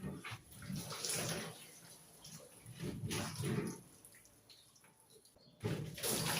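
Water splashing and running in uneven bursts, as when washing things at a sink, with a quieter spell after the middle.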